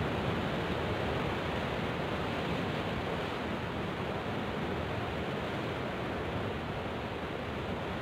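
Sea surf washing and breaking against rocks: a steady, even rush of noise.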